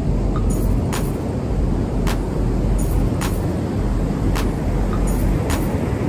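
Strong wind rumbling on the microphone, with ocean surf beneath it. A steady rhythm of sharp clicks, about one a second, runs over it.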